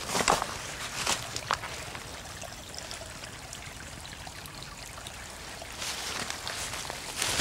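A small stream trickling steadily, with a few short scuffing noises about a second in and again near the end.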